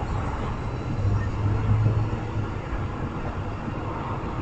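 A train rumbling past, a steady low rumble that swells about a second in and eases off after two and a half seconds.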